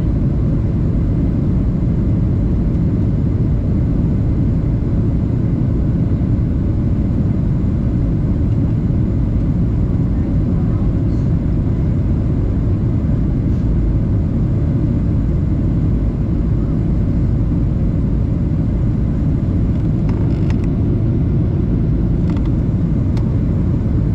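Steady low cabin rumble of a Boeing 737-800 in flight, heard from a window seat over the wing. It is the airflow and engine noise of the CFM56-7B turbofans, even in level throughout.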